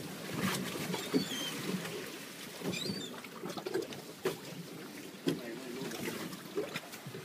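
Small fishing boat rocking in choppy sea, with water slapping against the hull, wind and irregular knocks. A few short, high seabird calls come about a second in and again near three seconds.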